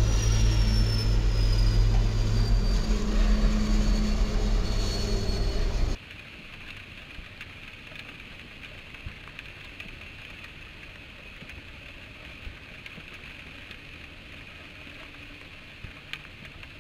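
Diesel locomotive passing, its engine loud and low, with a high whine sliding down in pitch. About six seconds in it cuts sharply to a much quieter steady rush of a double-stack intermodal freight train rolling past in heavy rain.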